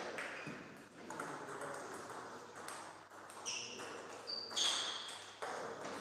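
Table tennis rally: the celluloid-type ball clicking off the rackets and the table in quick hits, with a few short high squeaks about halfway through.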